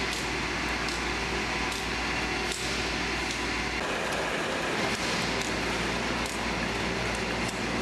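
Automatic PET bottle washing, filling and capping machine running: a steady mechanical noise with a low hum and occasional short clicks.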